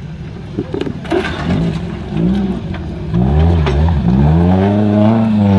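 Off-road buggy's engine revving up and down under load as it climbs over rocks, growing louder from about three seconds in. A few sharp knocks come about a second in.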